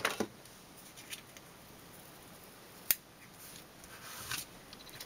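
Faint sounds of hands handling cardstock and double-sided tape liner: a sharp click about three seconds in, then a brief soft rustle of paper.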